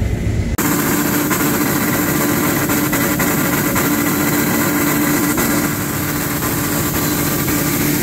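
Tractor running and turning a grain auger through its PTO driveline and gearbox, a steady mechanical drone with a held tone over it. The auger drive's bearing is worn, which the farmer sarcastically calls 'acceptable bearing clearances'.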